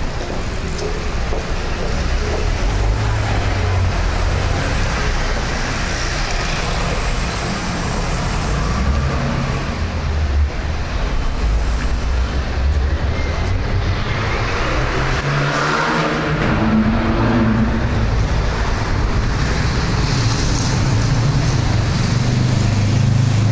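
City street ambience dominated by steady road traffic noise, a continuous low rumble of passing cars.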